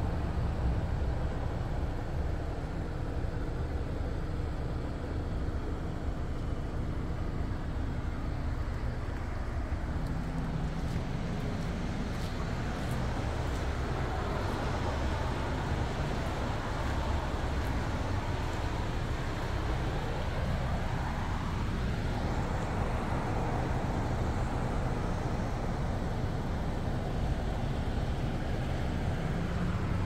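Steady street traffic noise with cars driving past, one car passing close at the start. About twenty seconds in, a rising tone sweeps up over a couple of seconds.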